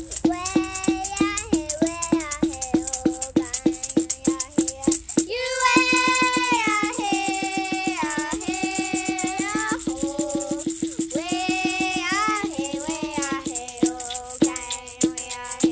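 Two young girls singing a song together while shaking handheld rattles in a steady beat of about four shakes a second; from about five seconds in the rattles switch to a fast, continuous shake, returning to the slower beat near the end.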